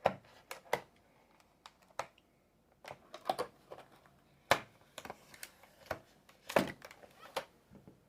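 Stiff plastic packaging being wrestled open by hand: irregular sharp clicks, snaps and short crackling spells with pauses between.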